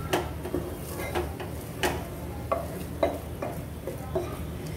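Wooden spatula stirring and scraping a thick spiced urad dal paste as it fries in a hard-anodised Hawkins pressure cooker, with a knock or scrape about two times a second over a light sizzle.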